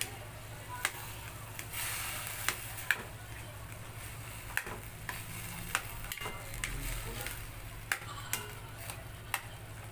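Metal spatula stirring ground pork, diced potatoes and carrots in a stainless steel pan, with irregular sharp clinks and scrapes of metal on the pan over a low sizzle.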